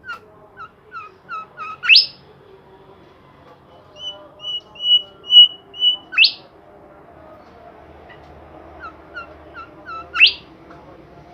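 A songbird known in Indonesia as the 'Bimoli' bird singing in three phrases, each a run of short chirps or level whistled notes ending in a fast, loud upward-sweeping whistle. The middle phrase holds five clear whistled notes on one pitch; faint low background noise sits beneath.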